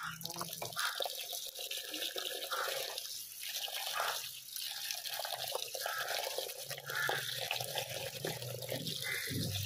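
Water running and splashing in uneven spurts.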